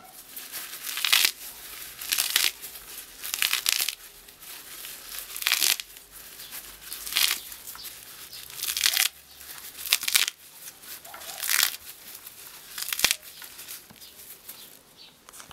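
Fresh fireweed (Ivan-chai) leaves being crumpled and torn by hand to bruise them for fermentation: a run of about ten crisp rustling, crackling bursts, one every second or so.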